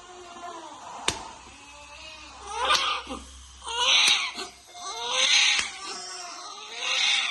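Newborn baby crying: soft whimpering cries at first, then four louder cries in quick succession. A single sharp click comes about a second in.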